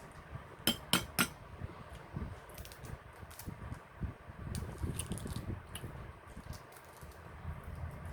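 Eating balut: three sharp clinks of tableware about a second in, then soft chewing with scattered small clicks.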